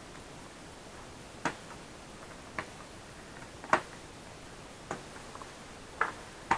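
Six short sharp clicks and taps about a second apart, the loudest near the middle, from small parts and tools being handled as a laptop is taken apart.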